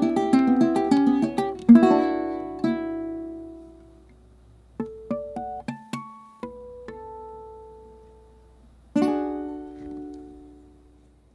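Venezuelan cuatro played solo, a tango: a quick run of plucked notes and chords rings away, a few single notes are picked slowly, and one last chord about nine seconds in is left to ring and fade, closing the piece.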